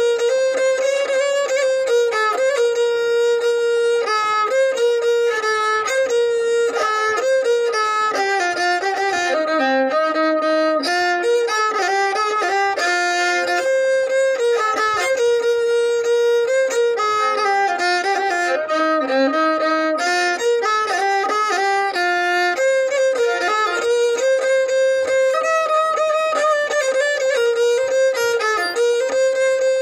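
Violin playing a melody as a single line of notes moving up and down, some short and some held, with no bass or percussion underneath.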